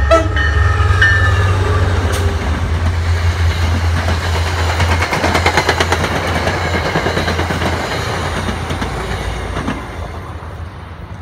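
MBTA commuter rail train passing at speed behind a diesel locomotive. The horn cuts off and drops in pitch in the first second as the locomotive goes by. The engine's low drone follows, then the coaches' wheels clicking rapidly over the rail joints, fading away near the end.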